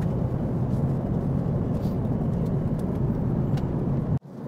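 Steady in-flight cabin noise of an Airbus A380, heard inside the upper-deck cabin: an even low rumble that cuts off suddenly near the end.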